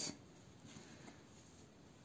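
Near silence with faint rustling of yarn being drawn through a crocheted piece with a tapestry needle.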